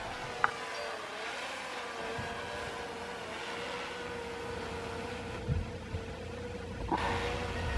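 Quadcopter drone flying overhead: a steady, high propeller whine that wavers a little in pitch. A single sharp click about half a second in.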